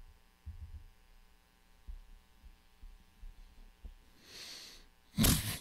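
A person breathing close to a microphone: a soft breath about four seconds in, then a louder, sharp breath near the end, over a faint room hum with a few soft low thumps earlier on.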